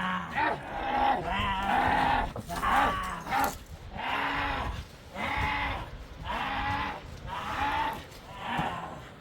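Sheep and goats bleating over and over, a call roughly every second.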